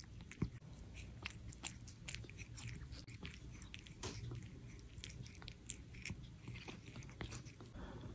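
A cat chewing and crunching food, a quick run of irregular sharp crunches, faint.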